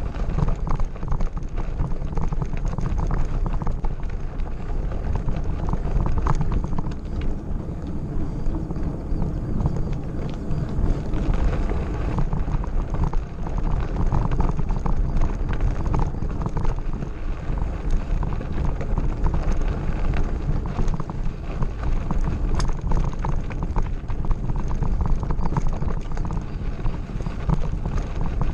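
Mountain bike riding over a gravel road: a steady rumble of tyres on loose stones with rapid irregular rattling and clicks from the bike, and a low buffeting that sounds like wind on the microphone.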